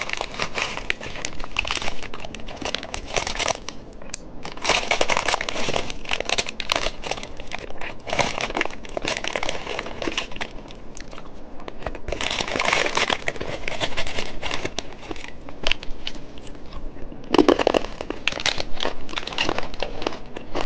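Plastic candy wrapper crinkling and crackling as it is handled and torn open, in irregular bursts.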